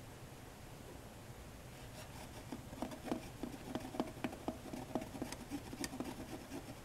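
A run of light clicks and taps, about four a second, starting about two seconds in and stopping shortly before the end, as a glass thermometer is moved about in the water of a nested foam-cup calorimeter.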